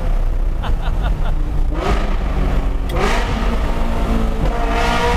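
Ferrari F355's V8 on a straight-piped exhaust, revving hard and echoing in a tunnel. Its pitch climbs and drops with throttle and gear changes, with the biggest surges about three and five seconds in.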